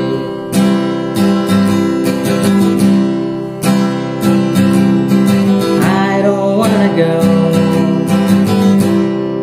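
Acoustic guitar strummed in a steady chord rhythm.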